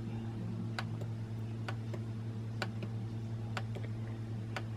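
Button clicks on a Canon Selphy CP1300 photo printer's control panel, about one a second, as photos are stepped through on its screen, over a steady low hum.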